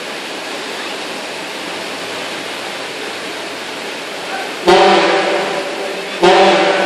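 Floodwater rushing down a street with a steady hiss. About two-thirds of the way in, a deep horn sounds in two long blasts, one straight after the other, louder than the water.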